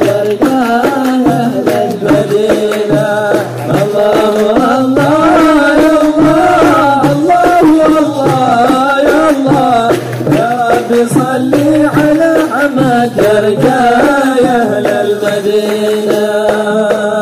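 Male voice singing an Arabic devotional qasida in long, melismatic lines without clear words, over steady hand-drum beats.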